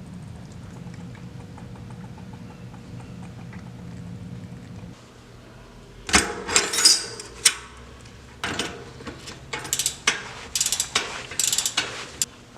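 A steady low hum, then, from about halfway through, loud irregular bursts of mechanical clicking and ratcheting from bicycle parts and tools being worked during a bike build.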